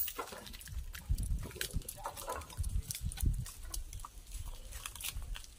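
Irregular low bumps with scattered clicks and rustles as a man climbs a tree, scuffing and gripping the bark and brushing against branches.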